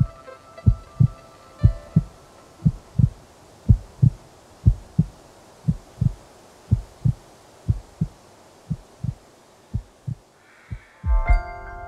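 A slow heartbeat: low double thumps about once a second, spacing out a little toward the end. Held bell-like tones fade out in the first two seconds, and a glockenspiel-like melody comes in near the end, just after a heavier low thump.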